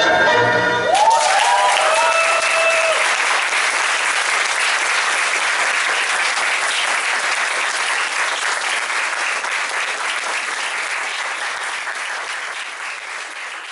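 Tango music ends about a second in and an audience breaks into applause, with a few voices calling out at first; the clapping slowly dies down.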